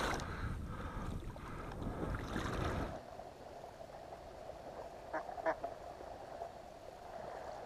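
Duck quacking twice in quick succession about five seconds in, most likely the live decoy hen. Before that comes about three seconds of water and wind noise.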